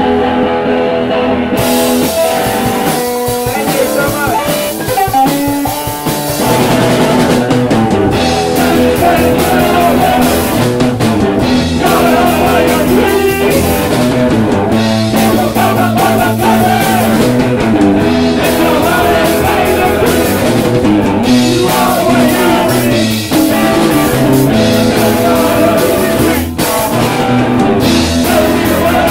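A punk rock band playing live: electric guitars and a drum kit, with singing.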